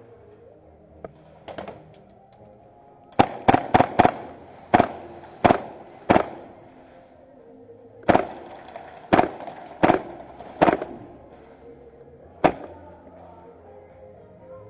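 Airsoft rifle firing single shots in quick groups of two to four, about fifteen in all, each a sharp crack with a short ring.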